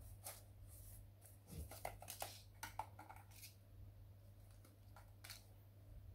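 Faint clicks and light scraping of small printer parts being handled, clustered between about one and a half and three and a half seconds in, with one more near the end, over a low steady hum.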